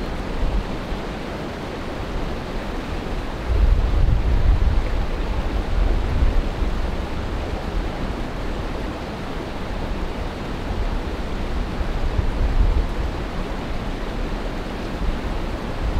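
Wind buffeting the microphone: a steady rushing hiss with a deep rumble that gusts up about four seconds in and again around twelve to thirteen seconds.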